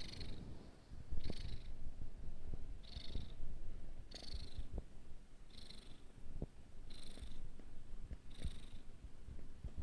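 Munchkin cat snoring loudly, one snore with each breath, about every second and a half.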